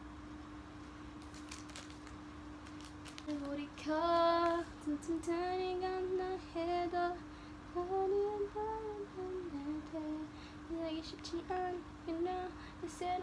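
A young woman singing a tune to herself, starting about three seconds in and going on in held, wavering notes, over a steady low hum that runs throughout.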